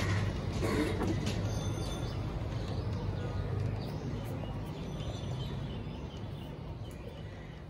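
A steady low rumble of outdoor urban background that fades gradually over the last few seconds, with a crow cawing once about a second in.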